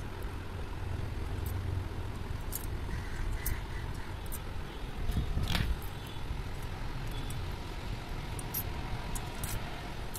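Light metallic clicks and clinks of steel valve springs being handled and set into place on an engine cylinder head, one sharper click about midway, over a steady low rumble.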